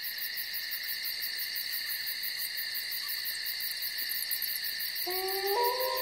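A steady, high-pitched night insect chorus, chirring with a fast even pulse. About five seconds in, wolves start howling together: several long, overlapping howls held at different pitches.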